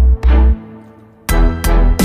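Background music: an electronic track with heavy bass hits and sharp struck notes that ring off. It drops away briefly near the middle and picks up again.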